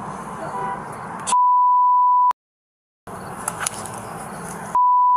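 Two censor bleeps, each a steady 1 kHz tone about a second long, edited in to blank out spoken words, with the audio cut to dead silence after each one. The first comes about a second in and the second near the end, with steady background noise between them.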